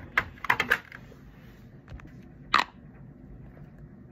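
Plastic skincare bottles being handled and set down on a table: a quick cluster of small clicks and knocks in the first second, then one sharper click a little past halfway.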